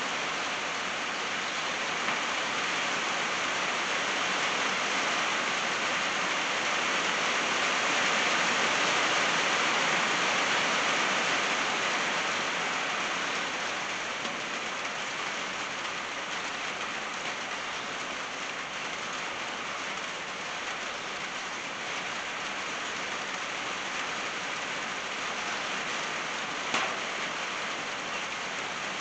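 Steady rain pattering on a tin roof, with drips falling from the eave; it swells slightly in the first half, then eases a little. One louder sharp tap comes near the end.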